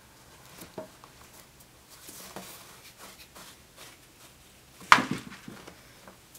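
Soft rustling and scraping of knit fabric strips being worked over and under the warp of a rag-rug twining loom, with small scattered clicks and one sharp knock about five seconds in.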